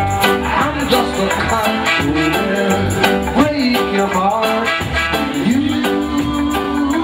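Live roots reggae band playing, with electric guitars, bass and drums, and a male singer's voice over the band.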